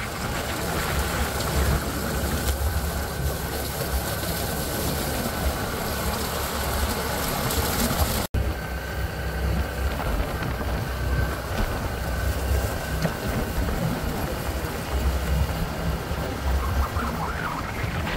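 ATV engine running steadily while riding a rough trail, mixed with wind and trail noise. The sound cuts out for an instant about eight seconds in.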